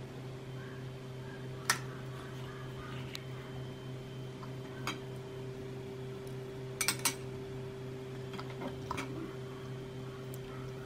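Utensils clinking against dishes as food is plated: a metal spoon tapping a glass bowl and a ceramic plate in scattered sharp clinks, with a quick run of three about seven seconds in. A steady low hum runs underneath.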